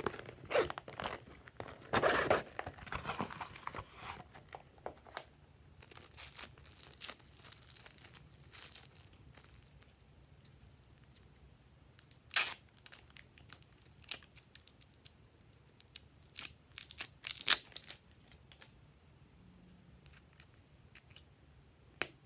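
Plastic handling sounds: crinkling, peeling and clicks in the first few seconds as a shell-shaped plastic container is handled over the slime, then a run of sharp clicks and crackles from about halfway through as a plastic lip gloss tube is opened. One more click comes near the end.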